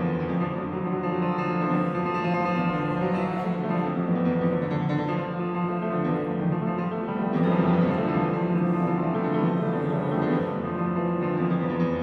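Instrumental background music of held, overlapping notes over a steady low note.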